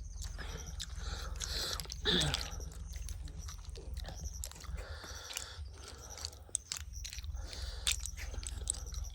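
Close-up eating sounds: chewing and crunching with small clicks and scrapes. About two seconds in there is a short, louder sound that falls in pitch.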